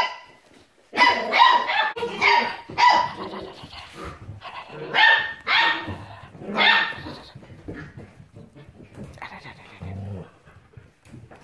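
Six-week-old border collie puppies barking in play: a run of short, high-pitched yaps, thick in the first seven seconds, fainter and sparser after that.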